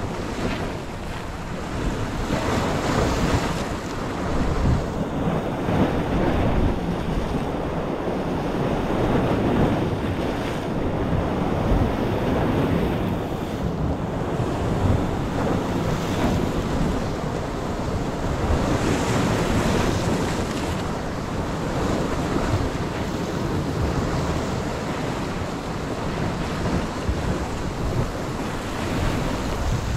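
Sea surf breaking and washing over the rocks at the water's edge, swelling and easing every few seconds, with wind buffeting the microphone.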